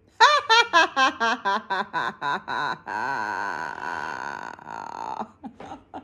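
Hyacinth macaw and woman laughing together. A quick run of ha-ha pulses, about five a second, gives way to one long laugh with a wavering pitch, then a few short breathy sounds near the end.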